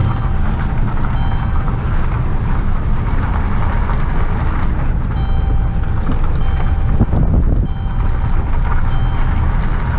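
A vehicle driving, with a loud steady low rumble and wind buffeting the microphone.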